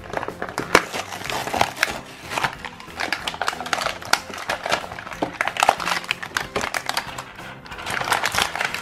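Clear plastic blister packaging crinkling and clicking as it is handled and opened, a rapid irregular crackle of plastic with several sharper snaps.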